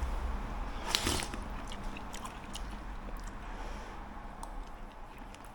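A person biting into and chewing a cooked small wonton: soft mouth and chewing sounds with faint clicks, and a short louder sound about a second in.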